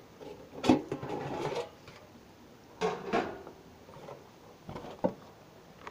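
Scattered knocks and scrapes from handling a metal pan of seasoned conch. There is a scuffing stretch early on, a louder clatter about three seconds in and a couple of sharp knocks near the end.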